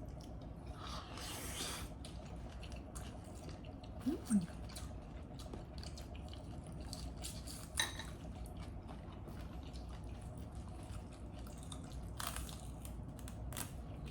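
People eating ramen at a table: chewing, with scattered light clicks of utensils on bowls and dishes and a brief rushing sound about a second in. A steady low hum runs underneath.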